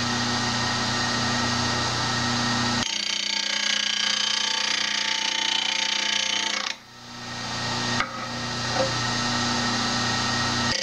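Rikon 8-inch bench grinder running with a steady motor hum while a woodturning parting tool is ground against the wheel, giving a continuous grinding hiss. The grinding sound changes abruptly a few seconds in and drops out briefly about two-thirds of the way through before building back up.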